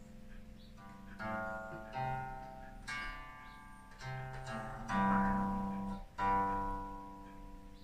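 Guqin, the seven-string Chinese zither, played solo: about six single plucked notes, roughly one a second, each ringing and fading away, the loudest near the end.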